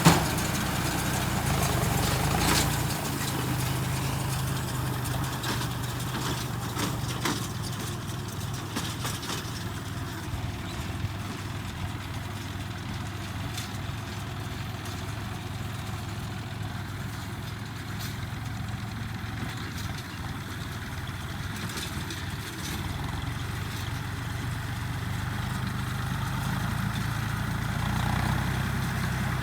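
An engine running steadily at low speed, with a short sharp knock at the very start.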